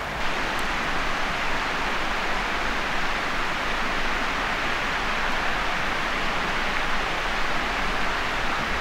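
Steady rush of a river running nearby: an even, unbroken hiss that holds at one level throughout.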